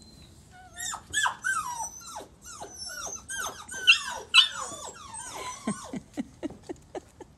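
Puppies whining and yelping in quick succession, many short high calls sliding down in pitch, some overlapping, as they jostle for room in a crowded tub. Near the end the calls thin out to brief, sharp yips.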